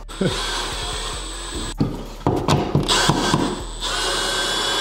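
Power drill/driver running in three spurts with two short breaks, driving the screws that tighten the wings of an old-work outlet box against the drywall, with a few knocks of handling.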